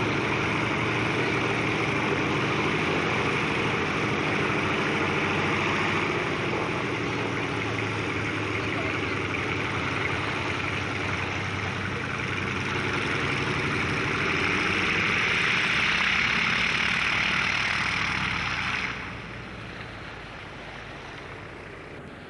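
Twin engines of a Grumman Mallard flying boat running steadily as it taxis on the water, a drone with a hiss over it. About nineteen seconds in the sound drops suddenly to a quieter steady level.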